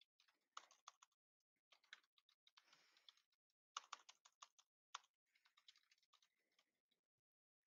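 Faint computer keyboard typing: quiet key clicks in short irregular bursts, stopping about six seconds in.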